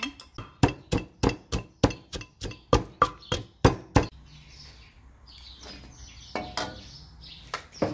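Wooden pestle pounding garlic in an earthenware mortar, a steady run of dull knocks about three a second that stops about four seconds in. After that, scattered bird chirps over faint background noise.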